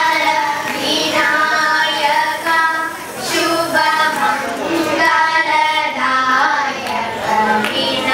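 A group of young girls singing together into stage microphones, their voices held and moving on sung notes.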